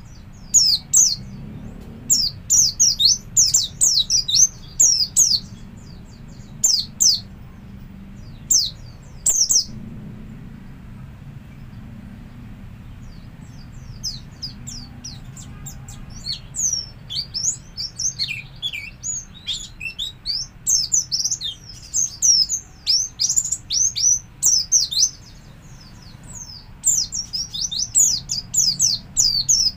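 White-eye (pleci) singing in the ngalas style: quick bursts of high, thin chirps, breaking off for a few seconds about a third of the way through, then a longer, denser twittering run and a last cluster of chirps near the end.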